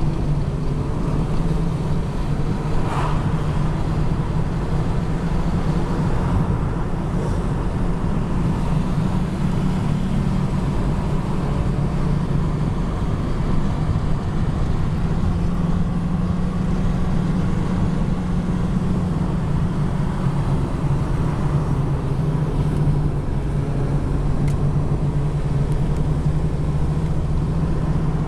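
Steady hum of a car driving at road speed, engine and tyre noise heard from inside the cabin.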